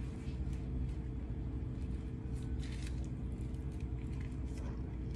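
A steady low mechanical hum, like a motor or fan running, with a few light clicks scattered over it.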